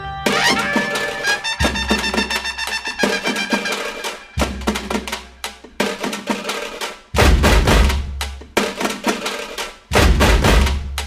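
Background music with a percussive beat, drum hits and heavy low thumps coming in about seven seconds in.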